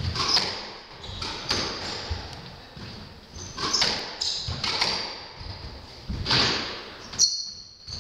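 Squash rally: the ball cracking off rackets and the walls about once a second, mixed with short high squeaks of court shoes on the wooden floor.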